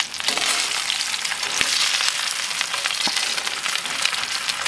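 Dry-brined New York strip steaks sizzling in avocado oil in a ripping-hot cast iron skillet, a steady crackling hiss just after the flip. Two light knocks come about a second and a half apart in the middle.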